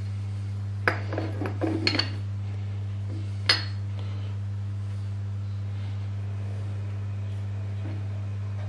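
Steel plate clinking and scraping against the milling machine's table-end bracket as it is fitted over a stud: a quick cluster of metal clinks about a second in, then one sharp clink a moment later, over a steady low electrical hum.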